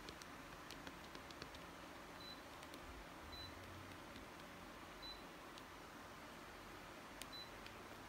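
Daikin split air conditioner's indoor unit giving four faint, short, high beeps about a second or two apart, each one acknowledging a command from its remote, with faint clicks of the remote's buttons.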